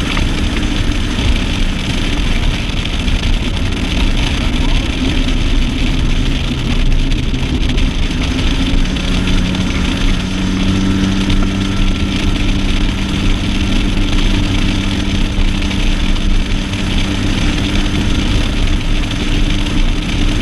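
A bass boat's outboard motor running steadily under way, its even hum heard over a constant rushing hiss of wind and water.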